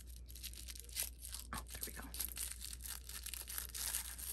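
Pink tissue paper being pulled open and unfolded by hand, tearing and crinkling in a run of small crackles and rustles.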